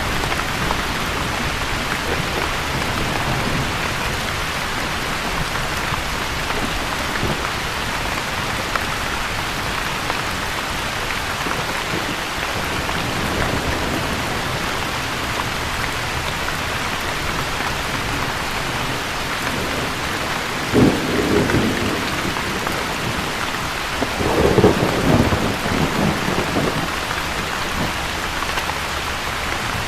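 Steady, even rainfall with a thunderstorm. Two low rolls of thunder come about two-thirds of the way through: first a short sudden one, then a longer rumble a few seconds later.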